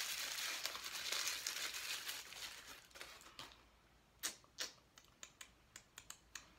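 Gift packaging rustling and crinkling as a small charm box is opened, fading out after about three seconds. Then a scatter of light clicks, two louder ones a little past the middle.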